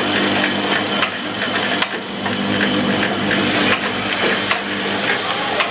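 Vibratory bowl feeder running with a steady buzzing hum as loose small metal parts rattle and chatter around its spiral track. A few sharp clicks sound at about one, two and four seconds in.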